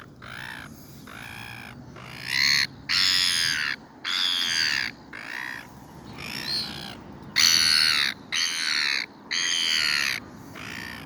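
A gull gives a run of about ten harsh, squawking calls in quick succession, each lasting up to about a second.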